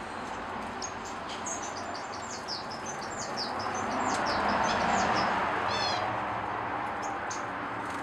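Small aviary finches twittering: a run of short, high chirps for several seconds, ending in a quick falling trill. Underneath is a low rushing background noise that swells and then fades midway.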